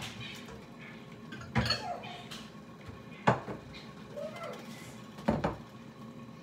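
Three sharp clanks of kitchenware, about two seconds apart, with a faint voice in the background.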